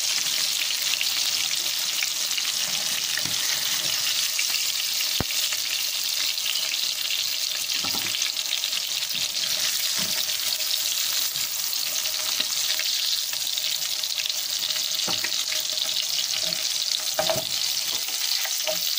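Chapli kebabs shallow-frying in hot oil in a frying pan, a steady sizzle. A few short clicks and scrapes of a metal spatula against the pan come as the kebabs are lifted out.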